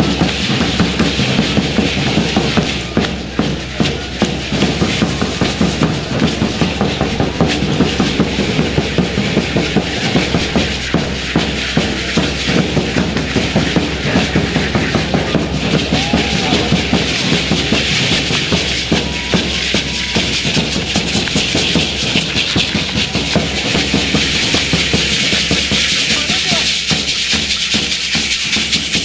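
Traditional danza music: a bass drum beats a steady rhythm while many dancers shake hand rattles in time, giving a dense, even rattling.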